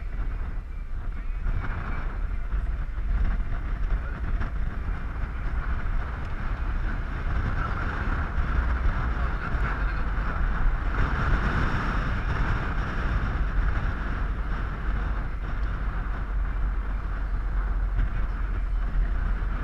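Wind blowing across the microphone over the steady road and engine noise of a vehicle on the move.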